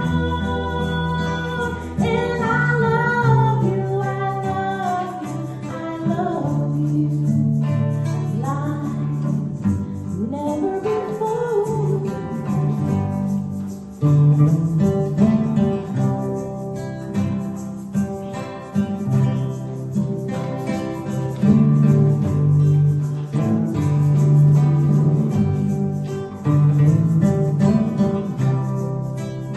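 A song with a voice singing over guitar and low bass notes; the singing is clearest in the first half, then the guitar carries on.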